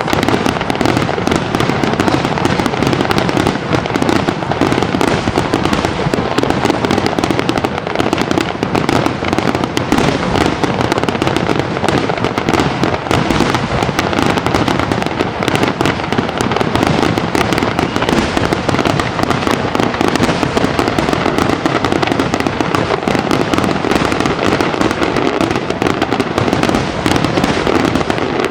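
Large fireworks display: a dense, unbroken barrage of shell bursts and crackling, the reports following one another too fast to separate.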